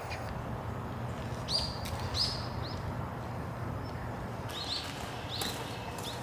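Small songbird giving short, high chirps in two runs, one about a second and a half in and another near the end, over a steady low hum.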